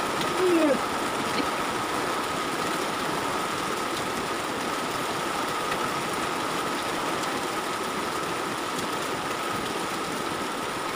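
A steady mechanical hum with a thin, steady high whine, unchanging throughout, and a short squeak-like glide about half a second in.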